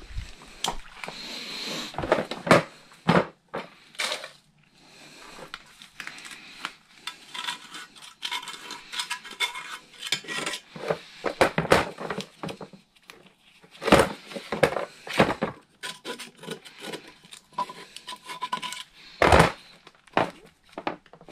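Metal pick scraping dry carbon buildup out of the port of a Honda 2.2 diesel's EGR valve, with irregular scrapes and sharp clinks of metal on metal.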